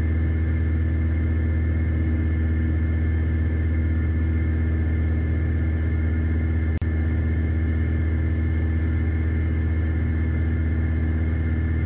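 Piper PA-46 Malibu's single piston engine and propeller droning steadily, heard inside the cockpit, with a brief click about seven seconds in.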